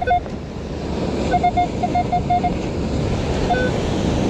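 Minelab Equinox metal detector beeping at a target: short beeps of one pitch, a quick run of about eight in just over a second, with single beeps near the start and near the end. Surf and wind hiss underneath.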